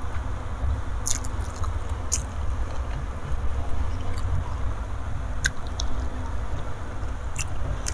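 Close-miked chewing of a mouthful of rice and balado fish roe, with a few sharp wet mouth clicks, over a steady low hum.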